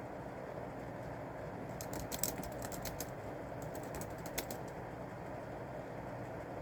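Computer keyboard typing: a short run of key clicks about two seconds in, then a pause, over a steady low background noise.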